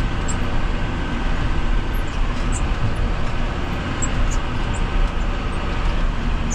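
Farm vehicle engine running steadily while driving, a continuous low rumble with a few faint light ticks.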